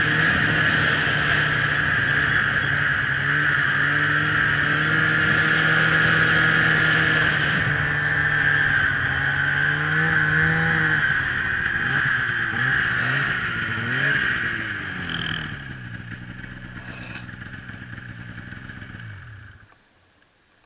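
Snowmobile engine running under way, holding a steady note, then its pitch rising and falling as the throttle is worked. It drops to a lower, quieter note and cuts off suddenly near the end.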